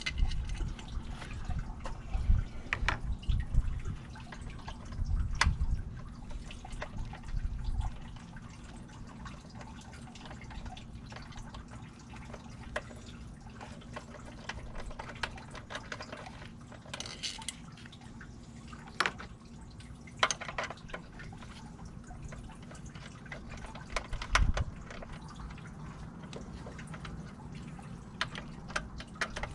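Scattered light clicks and knocks of small metal parts and tools being handled, with a few dull low thuds in the first several seconds, over a faint steady low hum.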